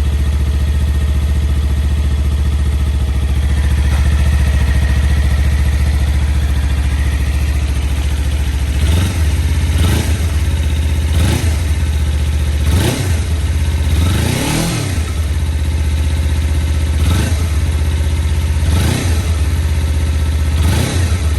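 Kawasaki Z250's parallel-twin engine breathing through an aftermarket LCI Parts slip-on muffler: a steady idle, then from about nine seconds in about eight short throttle blips, each rising and quickly falling back to idle, one near the middle a little longer.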